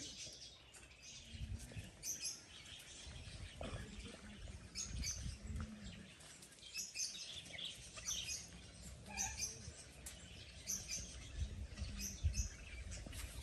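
Small birds chirping in short, scattered calls, with low rumbling bumps underneath now and then.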